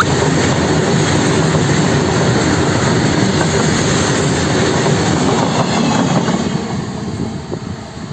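Train running on the track: a loud, steady rumble of wheels on rails that starts to die away about six seconds in.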